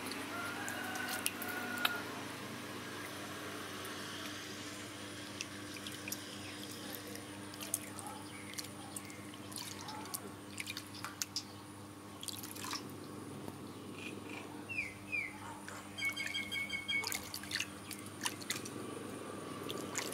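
Water splashing and dripping in a steel basin as a baby monkey is bathed, with small scattered splashes and drips from a hand scooping water over its back.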